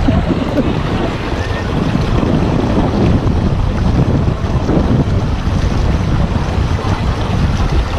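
Wind buffeting the microphone: a loud, steady rush with a heavy low rumble.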